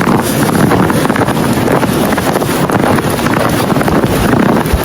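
Strong blizzard wind buffeting the phone's microphone in a loud, continuous rumbling rush.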